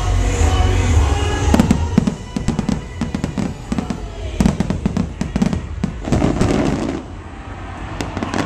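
Fireworks bursting over show music: a deep rumble, then a dense run of sharp bangs and crackles from about a second and a half in, thinning out near the end.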